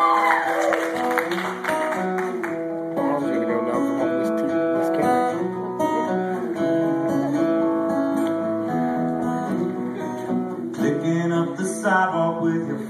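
Instrumental introduction of a song, led by acoustic guitar playing chords.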